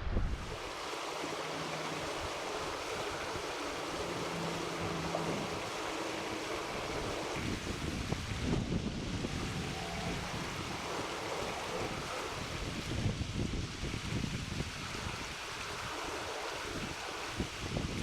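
Steady rush of flowing creek water and wind, with gusts buffeting the microphone now and then.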